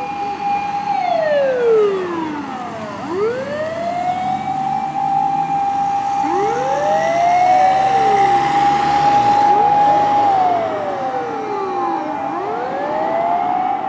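Fire rescue truck's motor sirens wailing: each winds up to a steady high tone, holds, then winds down. Two or more sirens overlap out of step, so rising and falling wails cross each other.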